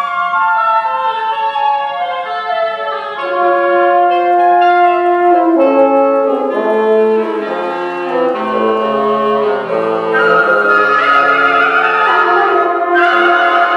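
Woodwind quintet of flute, oboe, clarinet, bassoon and French horn playing a contemporary chamber piece: held, overlapping notes stepping downward, with low bassoon notes coming in about halfway, and the texture growing louder and denser in the last few seconds.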